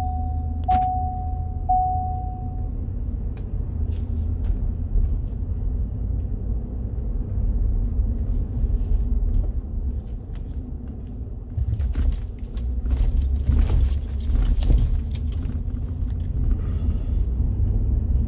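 Ford Super Duty pickup with the 7.3 Godzilla gas V8 driving, a steady low engine and road rumble. For the first couple of seconds a single-pitch chime beeps about once a second. Loose rattling and clicking comes in later, about twelve seconds in.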